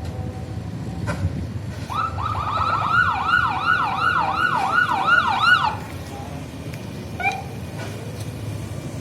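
Bus 'telolet' musical air horn sounding a fast warbling, siren-like tone that rises and falls about three times a second for nearly four seconds, starting about two seconds in, then one short chirp near the end, over a low rumble.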